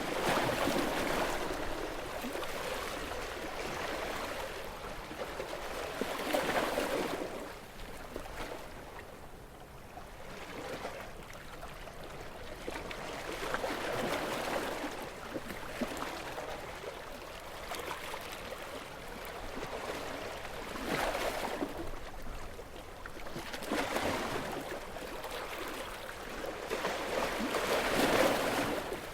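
Calm sea with small waves washing in, each swelling and then fading back every few seconds, the loudest near the end.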